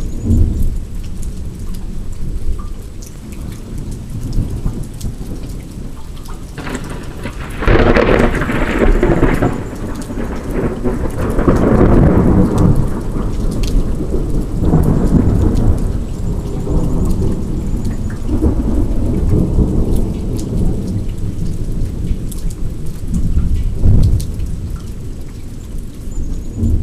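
Thunder from a lightning strike over steady rain: a sharp crack about eight seconds in rolls into a long low rumble that swells again several times, and another sudden clap comes near the end.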